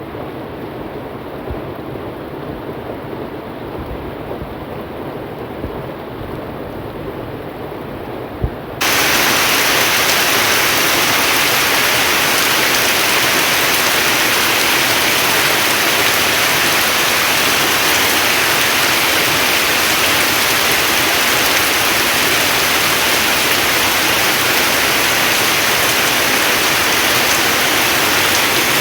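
Steady rainfall, with one brief knock shortly before a sudden jump, a little under nine seconds in, to a louder, hissier downpour that then holds steady.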